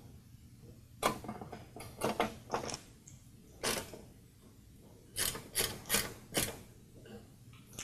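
Toro lawnmower's plastic recoil starter housing being seated on the engine and its screws driven in with a hand screwdriver: short bursts of scraping and clicking, with a run of four quick strokes near the end.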